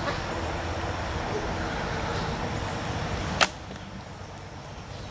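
A longbow shooting an arrow: one sharp snap about three and a half seconds in, over a low rumble that drops away right after the shot.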